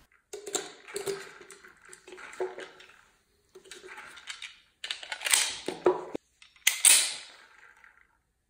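Clicks, scrapes and snaps of a Smith & Wesson M&P Shield 2.0 pistol and its magazine being handled as it is loaded. The slide is racked back and let go, chambering a cartridge; the loudest sharp snap comes a little under 7 s in.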